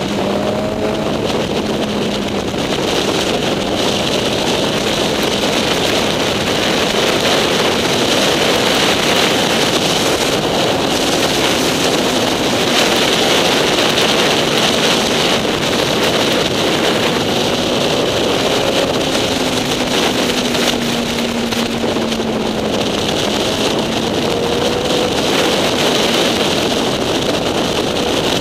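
Motorcycle riding at speed: wind rushing over the bike-mounted camera's microphone, with the engine droning underneath, its pitch slowly rising and falling with the throttle through the bends.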